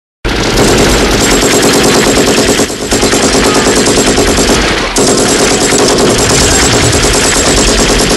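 Loud, sustained automatic gunfire: a rapid, continuous stream of shots that starts abruptly, dips briefly about three seconds in, and cuts off suddenly at the end.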